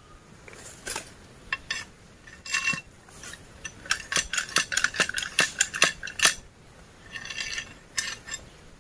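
Sharp clinks and knocks of a thin metal rod being handled and tapped, including a quick run of about ten strikes around the middle, with rustling of dry bamboo leaves in between.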